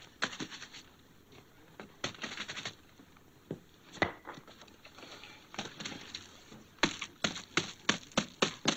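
Stiff brush scrubbing and scraping at a hardened, crusted polish compound on a leather boot: short scratchy strokes in scattered bursts, turning into a quick run of sharp strokes, about four a second, over the last two seconds.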